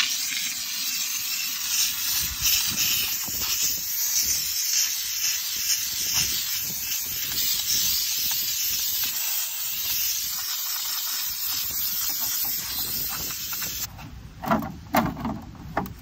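Handheld steam cleaner jetting steam from its nozzle: a loud, steady hiss that starts abruptly and cuts off about fourteen seconds in. Softer, irregular handling sounds follow.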